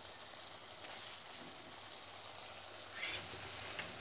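Elephant apple pickle sizzling gently in a pan, a steady hiss from the juices it has released as it softens, with a brief tap about three seconds in.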